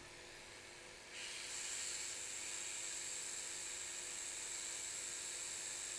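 Hot air rework station blowing a steady hiss with a thin high whistle in it, starting about a second in, as a small surface-mount capacitor on a phone logic board is heated to reflow its solder.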